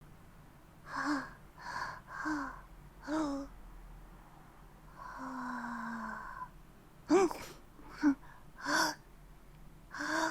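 A young woman's short, voiced gasps, a build-up to a sneeze, repeated several times with a longer drawn-out breath in the middle; the outbursts turn sharper and louder in the second half, about seven and eight seconds in.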